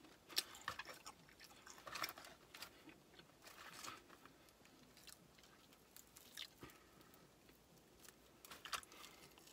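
Quiet chewing of crispy fried chicken, with scattered soft crunches and wet mouth clicks every second or so.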